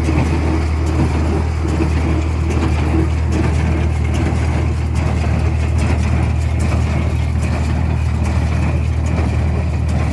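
John Deere 336 square baler running behind its tractor, the engine a steady, unchanging drone.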